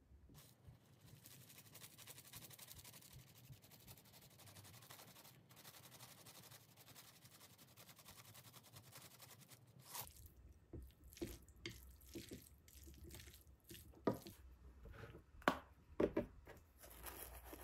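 Red pepper flakes shaken out of a spice jar onto a plate of noodles, a steady soft rattling hiss. About ten seconds in this gives way to a run of clicks and knocks of chopsticks against the plate as the noodles are stirred and lifted.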